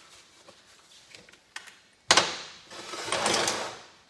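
Metal tools and small hardware being handled on a steel workbench: light clicks, then a sudden sharp clank about two seconds in, followed by about a second of metallic rattling as parts are rummaged in a tray.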